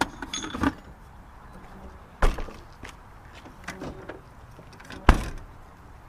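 Metallic clinking and rattling at the start, then two sharp, heavy knocks about three seconds apart, the second the loudest.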